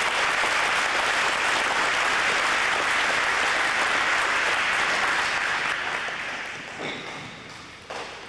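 Audience of seated students applauding, steady at first and dying away over the last few seconds.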